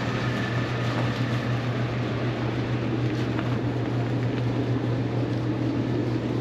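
Steady low machine hum under a constant rush of background noise, picked up by a camera's built-in microphone.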